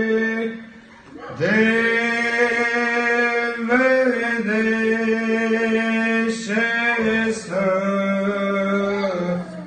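Group of men singing a Romanian Christmas carol (colind) together in long held notes. There is a short break for breath about a second in, then a new phrase.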